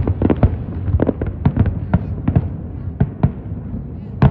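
Fireworks display: shells bursting in a rapid, irregular run of sharp bangs, a few each second, over a steady low rumble.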